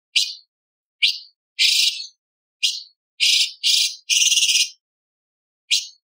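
Orange-bellied leafbird singing in a string of short, sharp, high chirps and longer harsh rasping notes, about seven in all, the longest a little past halfway, with a second's pause before the last.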